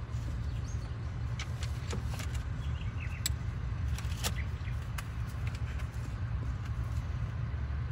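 Plastic instrument-cluster bezel of a Porsche 944 Turbo dashboard being lifted and worked free, giving a scattering of small clicks and creaks, over a steady low background rumble.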